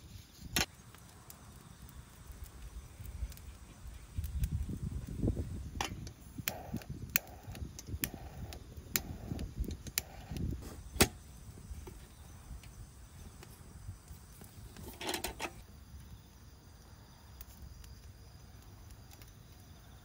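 Wood campfire crackling with scattered sharp pops. Low rushing puffs of air come a few times, as air is blown into the fire through a metal fire-blowing pipe.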